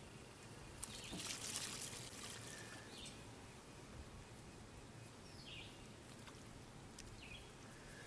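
Water poured from a jug into a small plastic tub under a hive-stand leg, filling an ant moat: a faint splashing trickle, loudest about a second in. A few faint bird chirps.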